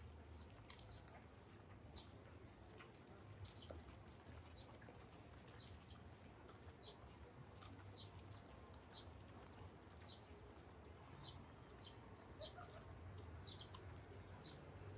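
Faint chirping of small birds: short high chirps scattered irregularly, one or two a second, over a faint low hum.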